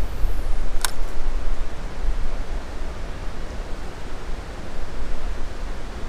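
Steady rushing noise with a heavy, unsteady low rumble, the sound of wind buffeting the microphone, and a single sharp click just under a second in.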